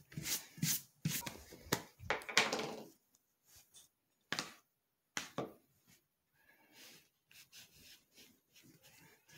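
Quick rubbing strokes of a hand tool across suede leather pieces for about three seconds, followed by a few short single knocks and light handling noise.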